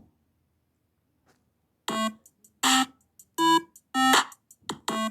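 Short synthesizer jingle: about six brief, separate keyboard notes, starting about two seconds in after near silence.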